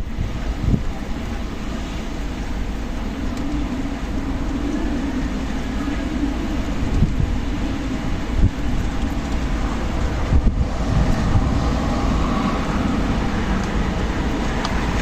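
Strong desert wind blowing continuously, with gusts buffeting the microphone as a low rumble.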